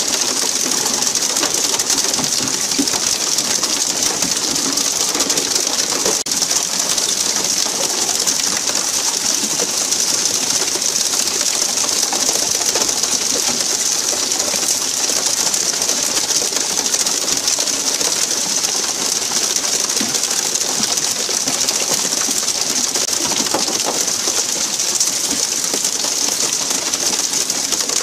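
Steady hiss of water jets spraying from a pole-and-line tuna boat's sprinkler pipes and pattering onto the sea surface.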